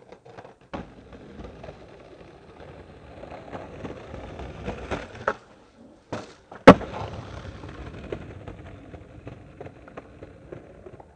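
Skateboard wheels rolling over stone paving with small clicks from the joints, then a sharp pop about five seconds in and a brief quiet while the board is in the air. The loudest sound is the hard landing about a second and a half later, followed by the wheels rolling on.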